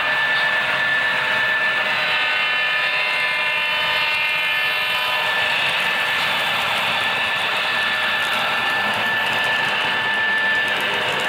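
HO-scale model freight train, led by several Union Pacific diesel locomotives, running past with a steady mechanical hum of several tones and a rolling noise. Faint fine clicking joins in about halfway through, as the hopper cars roll by.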